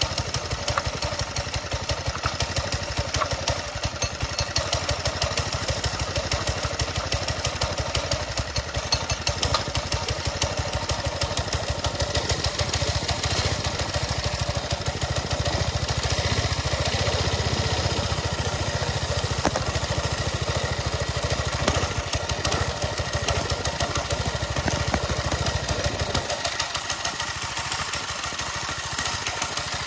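A 1970s chopper motorcycle's engine running, with a rapid, even firing pulse and a strong low rumble. Near the end the low rumble drops away for a few seconds, then returns.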